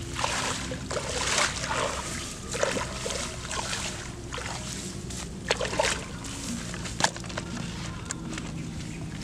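Irregular rustling and sloshing from hands working in grass and shallow water at a muddy pond's edge, with a sharp click about seven seconds in.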